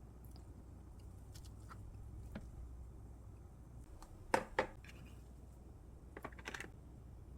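A few light clicks and taps over a low steady hum, with two sharper clicks a little past the middle and a short cluster of clicks near the end.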